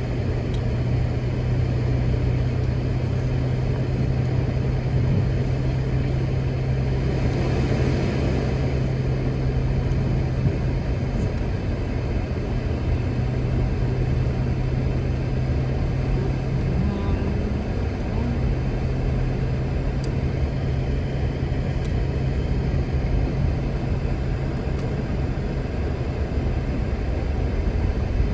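Steady drone of a car on the move, heard from inside the cabin: a low engine hum over tyre and road noise. A brief swell of rushing noise comes about eight seconds in.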